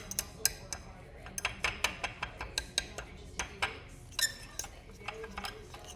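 A utensil clinking and scraping against a mixing bowl in quick, irregular strikes as a soft cotton, shampoo and lotion mixture is stirred.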